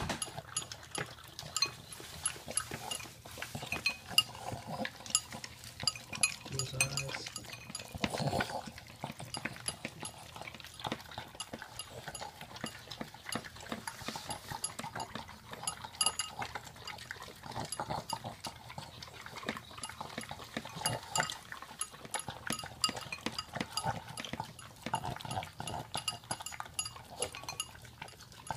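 Boston terrier eating a sticky yogurt, peanut-butter and honey mix from a ceramic bowl: steady wet licking and lapping with many quick, irregular clicks.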